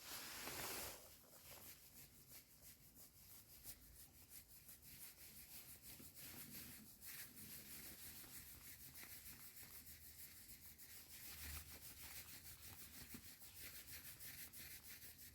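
Near silence with faint, fast rubbing close to the microphone.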